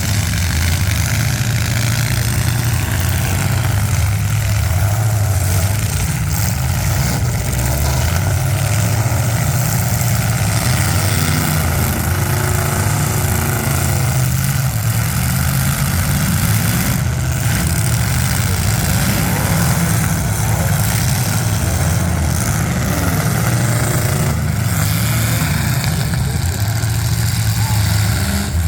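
Demolition derby cars' engines running loud and steady, with two sharp knocks, one past the middle and one near the end.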